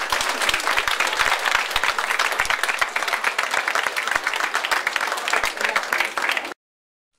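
Audience applauding: a dense, steady run of many hands clapping that cuts off abruptly near the end.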